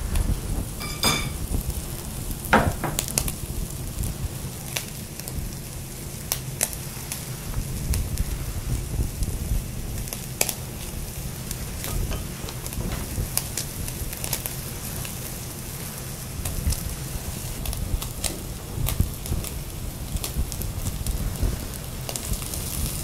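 Matsusaka wagyu steak sizzling on a wire grill over charcoal, with scattered small pops and crackles. A sharp light clink about a second in.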